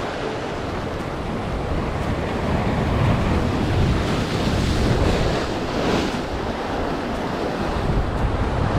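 Sea surf washing in along the shore, swelling and easing, with wind buffeting the microphone as a low rumble.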